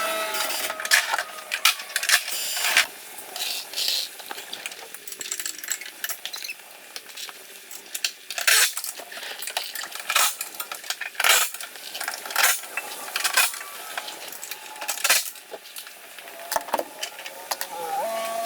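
Irregular light clinks and rattles, some in quick clusters, with short gliding squeaks near the start and the end.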